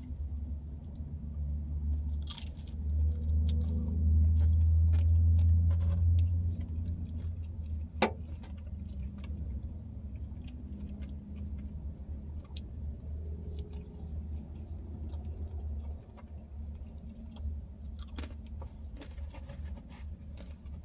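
A person chewing and biting thin-crust pizza, with small wet mouth clicks, over a steady low hum. There is a single sharp click about eight seconds in.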